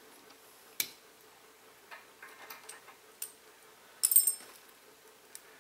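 Small metallic clicks and clinks as a brass drain valve is taken apart by hand with a tool: a sharp click about a second in, scattered light taps, then a short ringing clatter of metal about four seconds in, the loudest.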